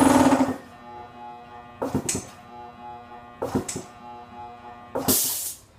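Air compressor's electric motor humming with power on but stalled, failing to start; a few sharp clicks, and a burst of hiss near the end. The motor is pushing against air trapped in the feed pipe from the head to the tank, which the owner puts down to either a worn start capacitor or a faulty check valve.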